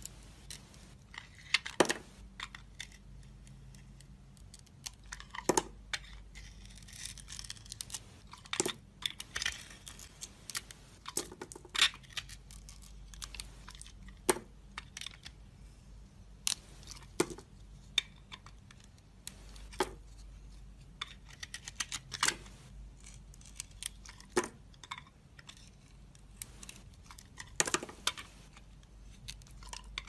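Thin metal blade cutting into a hard bar of soap: irregular, crisp, crunchy cuts and scrapes, some in quick runs of several strokes, others a second or two apart.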